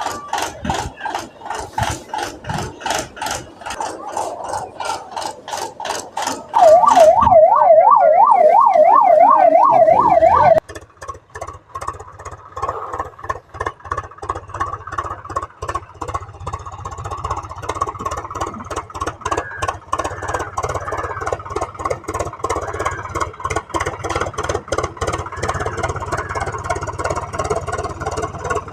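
Fast, even clicking and rattling for several seconds. It is interrupted by a loud, warbling siren sound that lasts about four seconds and cuts off suddenly. After that comes a toy RC car's small electric motor whirring, with clattering over the wooden planks.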